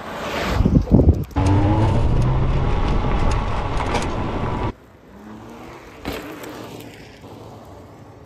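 Electric-converted 1971 Vespa Primavera with a rear hub motor riding on pavement: tyre and wind rush swells as it passes about a second in, then a loud steady road rush with a thin steady whine. This cuts off suddenly about halfway through to quieter, softer riding noise.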